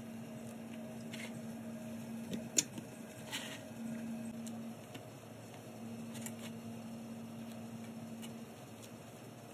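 A few light clicks and taps of a knife against a plastic mushroom tray, the sharpest about two and a half seconds in, over a steady low hum.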